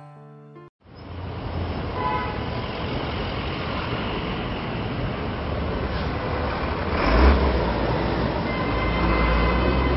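Busy street traffic: motorcycle and car engines running with a steady rumble, and faint horn toots. There is a louder engine surge about seven seconds in.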